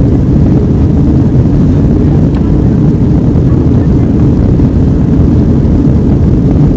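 Steady low rumble of engine and airflow noise inside the cabin of an Airbus A320-family jet airliner in flight.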